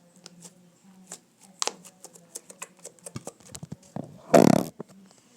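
Fluffy slime being stretched and squished by hand, giving a run of small sticky clicks and pops, with one louder, short rushing burst about four seconds in.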